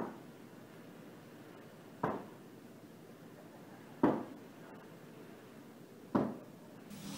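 Sharp knocks, four in all, evenly about two seconds apart, each with a short fading ring.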